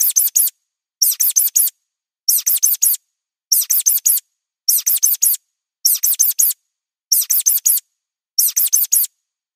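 Mouse squeaks: quick clusters of about four high-pitched squeaks, each falling in pitch, repeating about every 1.2 seconds with silence between.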